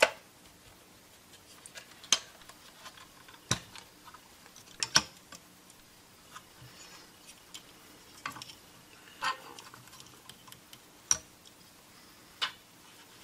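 Scattered sharp clicks and knocks of plastic and sheet-metal parts being handled inside an opened server power supply, as the fan assembly is lifted and set back in the case. There are about eight separate taps, spaced irregularly.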